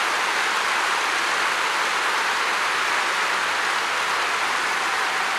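Large football-stadium crowd applauding, a dense, steady clapping with no voice rising out of it.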